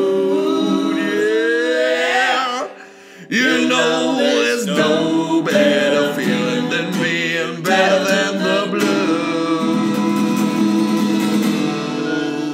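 A male voice sings a comic blues song over a strummed acoustic guitar, with long held notes. There is a short break about three seconds in.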